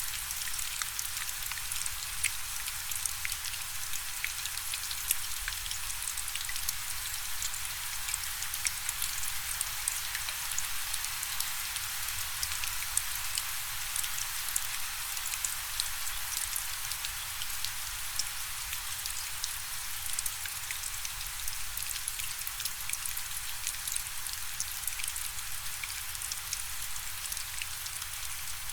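Steady rain falling: a continuous hiss of rain with many separate drops ticking sharply on a surface.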